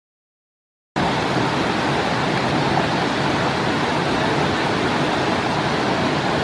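Creek water rushing steadily as an even hiss, cutting in suddenly about a second in.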